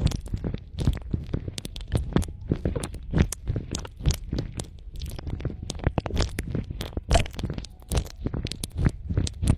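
Close-microphone ASMR sounds: rapid, irregular clicks and crackles over a low rumble, with no steady beat.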